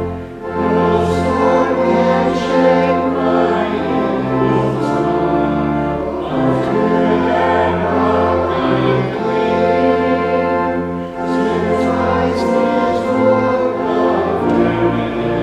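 Church organ playing closing music: full sustained chords over long held bass notes, the chords changing every second or two.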